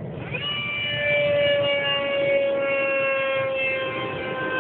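Radio-controlled model airplane's motor whining in flight. It sweeps up in pitch just after the start, then holds a high, steady whine that sinks slowly in pitch and grows louder about a second in.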